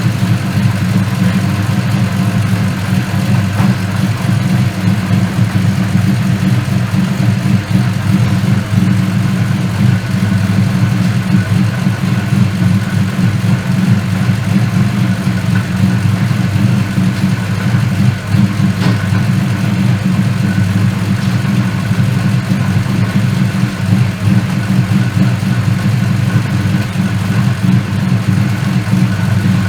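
Car engine running steadily with a low, even drone and no revving.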